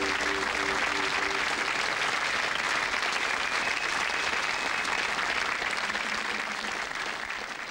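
Studio audience applauding, with the last notes of the closing theme music dying away in the first second or so; the applause thins and fades near the end.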